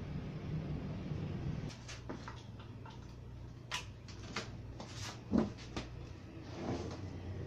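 Scattered small clicks and light knocks of hands handling parts on an opened flat-panel TV's boards and metal chassis, with one louder dull thump about five and a half seconds in. A low steady hum runs under the first second or so.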